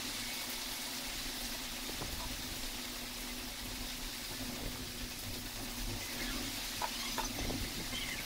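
Steady hiss of background noise with a faint low hum, and a few faint metallic clicks about seven seconds in from the bicycle front hub and axle being worked by hand.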